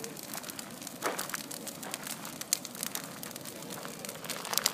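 Large wood bonfire crackling, with irregular pops and snaps over a steady rushing of flames; a sharper snap about a second in and another near the end.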